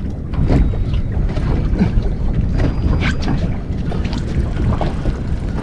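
Wind buffeting the microphone in a constant low rumble, with water slapping irregularly against the boat's hull.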